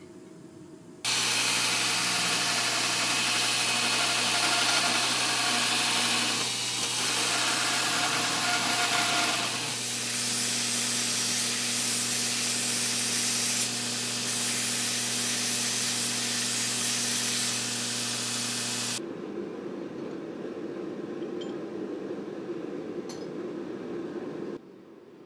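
Wilton belt grinder running, a steady hum under the hiss of a steel disc being ground on the belt, starting about a second in, with the pitch of the hum shifting about ten seconds in. Then a quieter, lower, steady rushing of a gas forge burner, which cuts off near the end.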